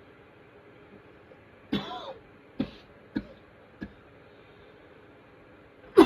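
A person coughing. First comes one longer cough whose voice drops in pitch, then three short coughs spaced about half a second apart.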